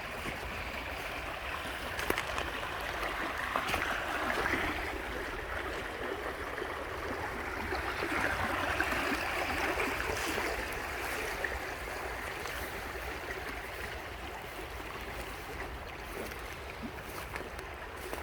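River water flowing and babbling over stones, a steady rush that swells a little at times, with a few light clicks.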